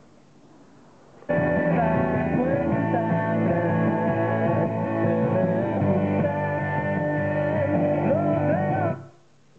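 A Loewe SoundBox speaker system playing a song with singing from a docked iPhone. It starts suddenly about a second in and cuts off abruptly near the end.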